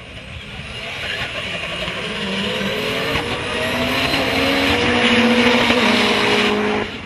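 Two drift cars running sideways: engines held at high revs, their pitch climbing slowly, over a loud hiss of squealing, spinning tyres. The sound grows louder as the cars come past and cuts off suddenly near the end.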